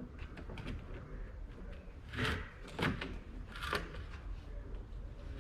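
Hand tool clicking and scraping against a hose clamp and hose fitting while working it off, with three louder scrapes about two to four seconds in.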